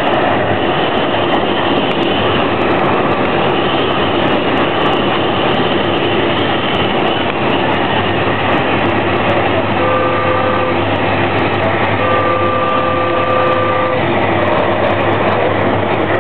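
Passenger train running along the rails, heard from inside the carriage: a steady, loud rush and rumble of wheels on track. About ten seconds in, a steady tone sounds twice, first briefly and then for about two seconds.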